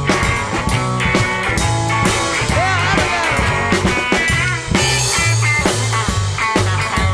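Rockabilly band playing an instrumental break: a lead guitar with bent notes over upright double bass and drums.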